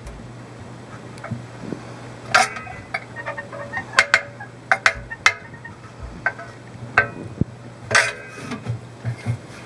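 A dozen or so scattered sharp clicks and short clinks, irregularly spaced, over a steady low hum.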